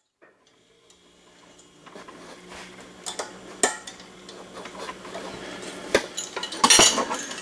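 Metal-on-metal clinking and ticking as a valve spring is compressed on an SR20DET cylinder head and the retainer is worked into place with a thin stainless steel rod. Scattered light ticks build into sharper clinks, with the loudest cluster near the end.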